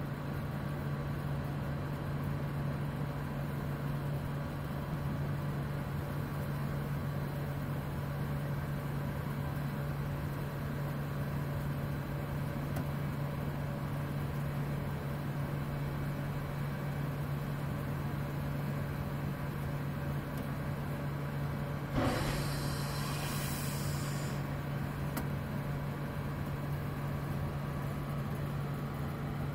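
A steady low machine hum while the pneumatic telescopic mast is pressurised and extends. About three quarters of the way through there is a burst of hissing that lasts about two seconds.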